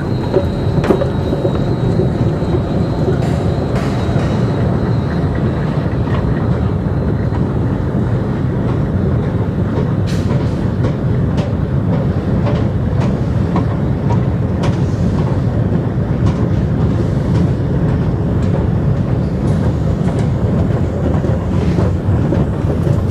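Escalator running under a rider going down: a steady low rumble with scattered light clicks from the moving steps. A faint high whine fades out about seven seconds in.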